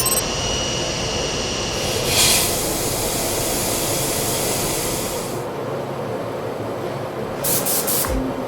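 Steady machine-shop noise with a hiss that starts about two seconds in and lasts about three seconds, then a few short sharp bursts near the end.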